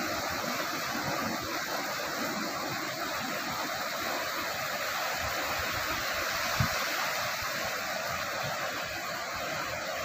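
Ocean surf on a beach: waves breaking and washing in as a steady rushing, with uneven low rumbling and a brief low thump about two-thirds of the way through.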